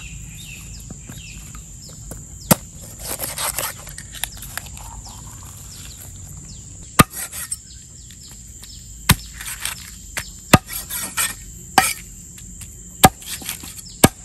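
Meat cleaver chopping a raw chicken into pieces on a wooden tree-stump chopping block: about seven sharp single chops, spaced one to a few seconds apart, with softer handling of the meat between them.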